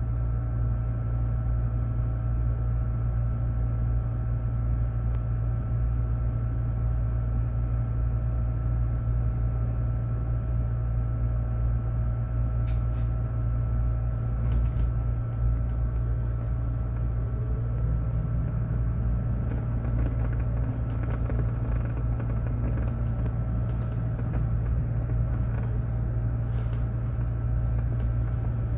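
Mercedes-Benz eCitaro battery-electric bus under way: a steady low rumble with a constant hum above it, and a few creaks and rattles from the body around the middle.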